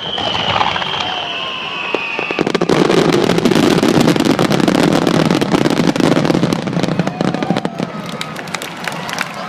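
Fireworks display: a high whistle that sinks slightly in pitch for about two seconds, then a dense spell of crackling from many shells at once, thinning out near the end.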